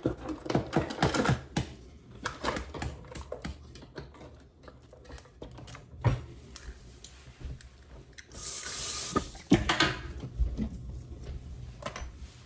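Kitchen clatter from baking prep: quick clicks and knocks of utensils, bowls and ingredients being handled, densest in the first couple of seconds, with a brief hiss about eight seconds in.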